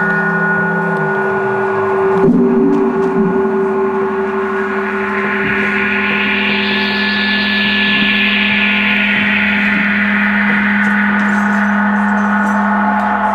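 Live drone music: steady low held tones, a single struck sound about two seconds in, and a hissing wash of sound that swells and then fades away in the middle.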